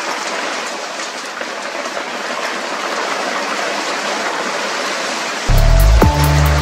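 Hail and heavy rain pelting down in a steady dense hiss, with scattered ticks of hailstones striking. Music comes in loudly about a second before the end.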